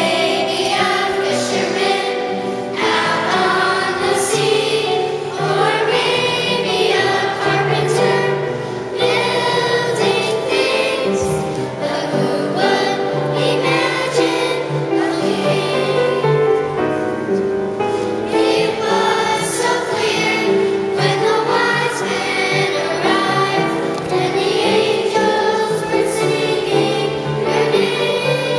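A children's school choir singing a Christmas carol.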